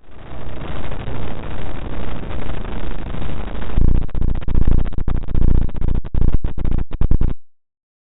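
Synthetic noise made by converting the picture's RGB colour channels into sound waves: a dense, buzzing hiss that pulses about twice a second. About four seconds in it changes abruptly to a harsher, bass-heavy crackle, then cuts off suddenly.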